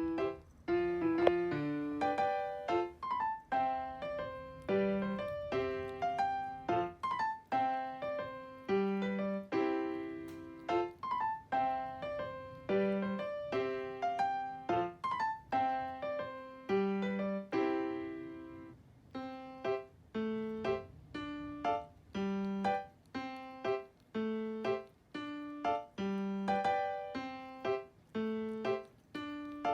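Background piano music: a light, repeating melody of plucky struck notes at a steady tempo.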